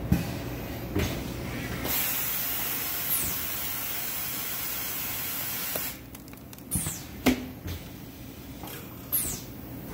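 Automatic screen-printing press working: a steady hiss of air for about four seconds that cuts off suddenly, then several sharp mechanical clunks and clicks from the squeegee carriage.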